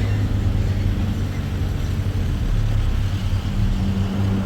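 Motor vehicle engine running steadily at a low, even speed.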